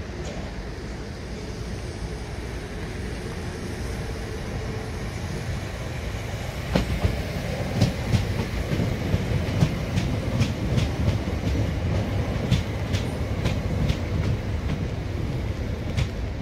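Southern Class 377 Electrostar electric multiple unit approaching and running past, its low rumble slowly growing louder. From about seven seconds in come sharp, irregular clacks as its wheels run over the track joints.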